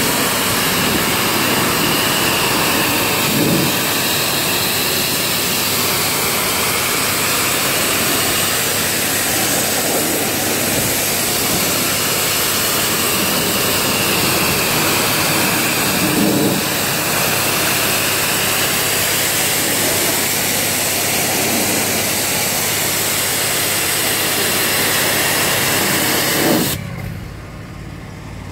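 Engine-driven pressure washer running on low throttle, just off idle, its wide-angle spray from the hand lance hissing steadily against wooden fence boards. Near the end the spray stops suddenly as the trigger is let go, and the engine keeps running more quietly.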